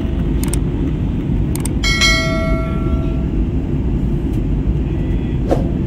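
Steady low roar inside an airliner cabin, engines and airflow, as the jet flies low on approach. About two seconds in, a single cabin chime rings out and fades over a second or so.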